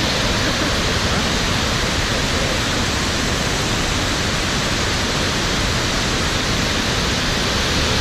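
Great Falls of the Passaic River: a large waterfall rushing steadily, heard from close by as an even noise with no breaks.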